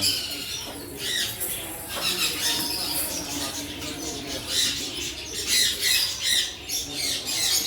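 Many birds chirping and squawking at once, short overlapping calls throughout.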